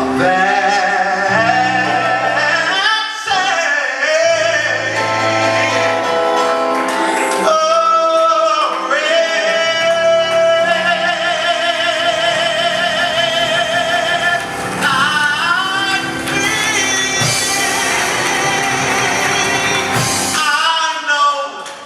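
Gospel singers, male and female voices, singing over instrumental accompaniment, with long held notes sung with vibrato in the middle of the passage.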